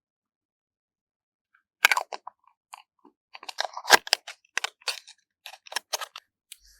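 Close-miked crisp clicking and crunching, a quick irregular run of sharp taps and crackles that starts about two seconds in, after silence.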